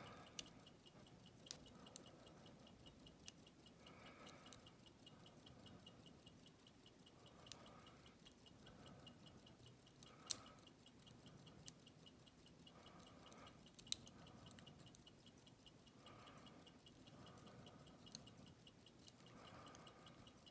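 Faint, scattered metallic clicks of a lock pick and tension wrench working the pins of a PacLock 200 padlock: about a dozen sharp ticks at irregular intervals, the loudest about ten and fourteen seconds in.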